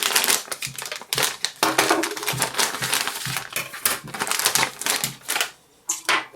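Plastic packaging crinkling, with irregular clicks and light knocks of small hard parts, as a drone frame kit is unpacked and handled. It goes almost quiet for a moment near the end.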